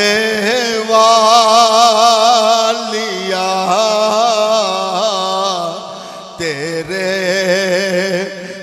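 A man sings a devotional Urdu-Punjabi song into a microphone, drawing out long, wavering held notes with no clear words. A steady drone sits underneath. The voice briefly breaks off about six seconds in, then carries on.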